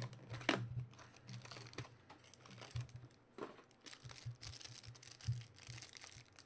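Plastic wrapping on a box and pack of trading cards being torn and crinkled by hand, with scattered short rips and taps.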